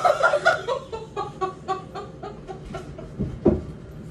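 A woman laughing hard in a run of rapid, clucking pulses that trail off over about three seconds, with a dull thump near the end.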